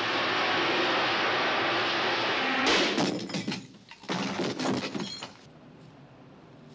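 A steady loud rushing noise. About two and a half seconds in it gives way to a sudden crash and a second of cracking and splintering, as a door is forced and the wood around its lock breaks. More cracks and metallic clinks follow, with a brief ringing, before the sound drops to quiet room tone.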